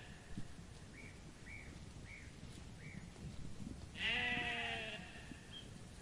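A sheep bleating once, about four seconds in: a single drawn-out, wavering call that drops in pitch at its end.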